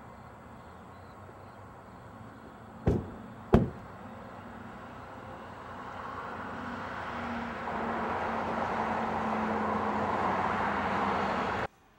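A car door slammed shut, two solid thumps in quick succession about three seconds in. Then a swelling rush of vehicle noise with a low steady hum builds over the second half and cuts off suddenly near the end.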